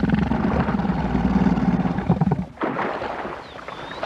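African elephant giving a loud, low, rough rumbling call that breaks off about two and a half seconds in, followed by a shorter second call.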